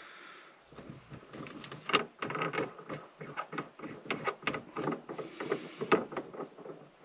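Hands working an aftermarket shift knob on a car's gear-shift stem to adjust its position, giving a run of irregular clicks and rattles that stop just before the end.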